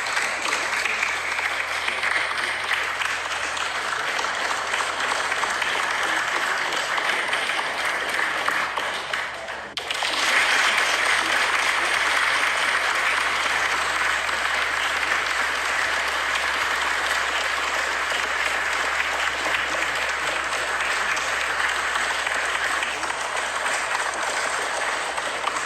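Crowd applause, a dense steady clapping. About ten seconds in it dips briefly and comes back slightly louder.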